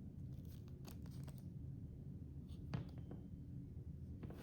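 Faint handling noises: a few light clicks and rustles as a vinyl toy figure is moved in the hands, over a low room hum.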